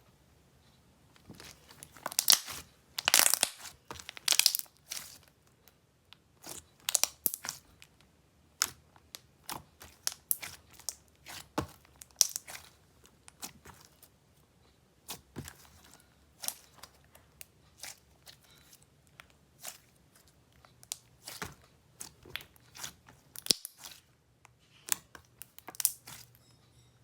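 Thick, glossy slime being pressed and stretched by hand, its trapped air bubbles popping in irregular sharp clicks and crackles, with short quiet gaps between clusters.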